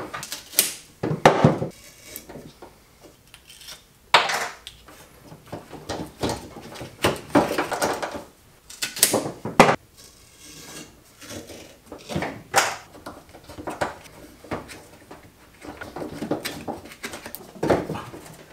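Irregular knocks, clicks and rattles of gear-shift cables and their fittings being handled and fed along a bare sheet-steel car body tunnel, with metal tapping on metal now and then.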